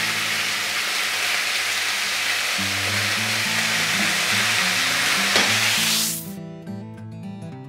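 Beef rouladen sizzling loudly as they sear in hot rapeseed oil in a frying pan. The frying noise cuts off abruptly about six seconds in, leaving soft acoustic guitar music that was playing under it.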